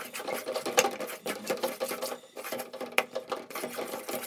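Metal spoon stirring and scraping a thick roasted-gram flour burfi mixture in a metal kadai, with quick, repeated clicks and scrapes against the pan.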